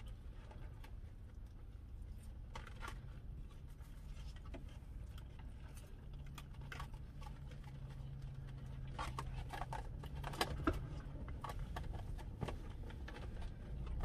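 Light clicks and scrapes of a fork picking at salad in a clear plastic bowl, with chewing, over a low steady hum in a car cabin. The clicks are scattered and come most often in the second half.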